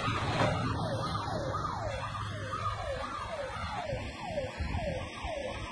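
A siren or alarm yelping in quick, evenly repeated falling sweeps, about two and a half a second, over a low rumble.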